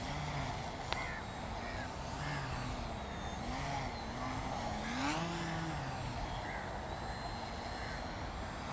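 Electric brushless motor and propeller of an RC model plane, the motor note rising and falling as the throttle is worked, over wind buffeting the microphone. A single click sounds about a second in.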